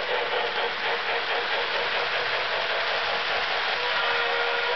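Lionel model steam locomotive and its freight cars running past on three-rail track: a steady whir of motor and wheels with a quick, even rhythmic clatter, and a few steady tones setting in near the end.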